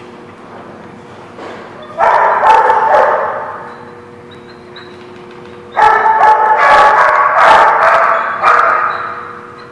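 Dogs barking during play in two bouts: a short burst about two seconds in, then a longer run of barks from about six seconds in that fades out near the end, over a steady room hum.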